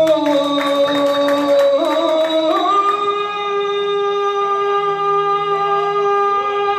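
Live singing: a voice slides between notes, then holds one long steady note for about four seconds, with light percussive taps during the first two seconds.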